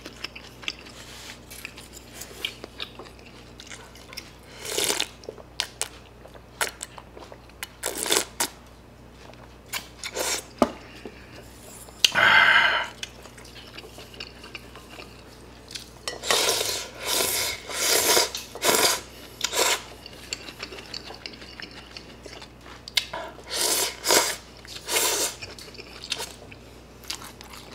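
Close-up eating sounds: wooden chopsticks clicking against a bowl and plastic tray, and rice noodles from a bowl of pho being slurped and chewed in several runs of short bursts.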